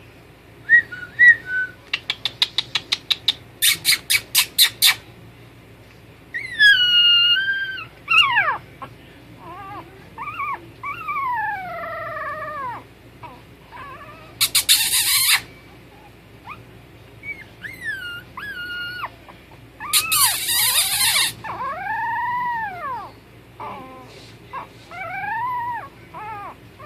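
Young puppies whining and yelping: high drawn-out whines that glide up and down in pitch, a quick run of short sharp yips a few seconds in, and two harsh, noisy cries about halfway and two-thirds of the way through.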